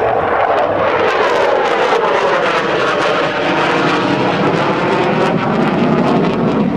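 F-16 Fighting Falcon jet engine noise from the fighter manoeuvring overhead, loud and continuous, with a whooshing sweep that falls in pitch over the first couple of seconds and rises again later.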